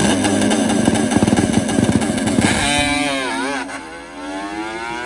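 Kawasaki H2 750 two-stroke triple drag bike running hard. About three seconds in, its note dips and wavers and loses loudness, then pulls steadily up in pitch again: a bog in the engine.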